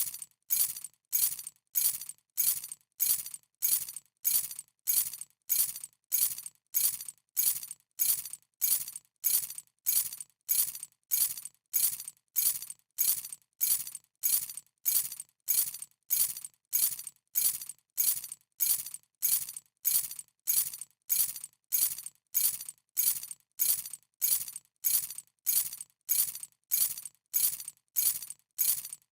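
A bunch of keys being dropped, a short bright metallic jingle and clatter on each drop. The same drop repeats evenly, about three every two seconds.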